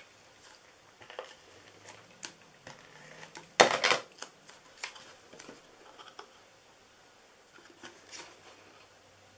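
Paper strips and cardstock being handled on a craft mat: scattered light taps and rustles, with one louder, longer rustle or snip about three and a half seconds in.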